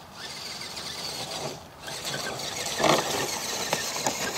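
An Axial AX10 Scorpion RC rock crawler's electric motor and gears whining as it crawls over ice and rocks, with a louder clatter about three seconds in.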